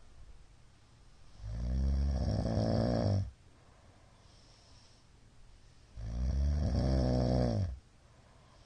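A middle-aged man snoring loudly in his sleep: two long snores of about two seconds each, some four and a half seconds apart.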